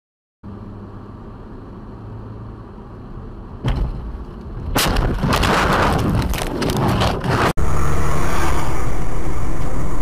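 Steady vehicle and road noise, then a sudden bang a little over a third of the way in and a few seconds of loud crashing and clattering impacts, typical of a car collision caught on a dash cam. It cuts off abruptly and switches to louder steady vehicle noise.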